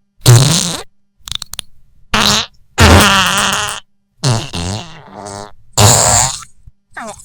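A quick run of fart sound effects, about six in a row of different lengths, several with a wobbling pitch, the longest just past the middle.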